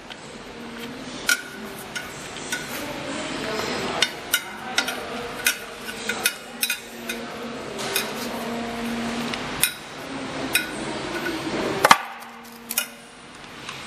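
Irregular clicks and knocks as a terminal-box cover is fitted back onto an electric motor and screwed down with a screwdriver, with one louder knock near the end.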